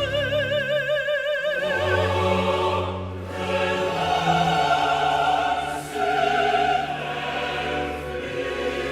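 Baroque opera singing with orchestra: a high voice holds a note with wide vibrato for about a second and a half, then the singing and accompaniment move on to new notes.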